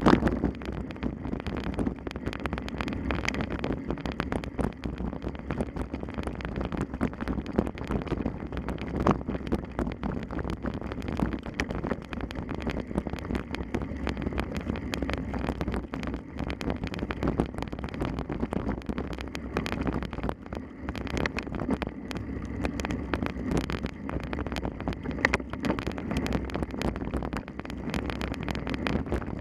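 Wind buffeting the microphone: a steady rumble with frequent small knocks and rattles throughout.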